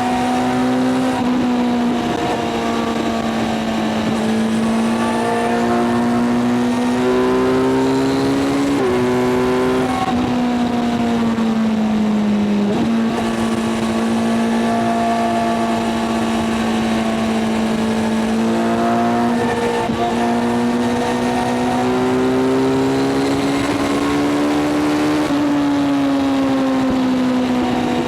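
Kawasaki inline-four sport motorcycle engine running at high, steady revs at highway speed, its pitch slowly rising and falling with the throttle, with quick dips about 9 and 13 seconds in and a slow drop near the end.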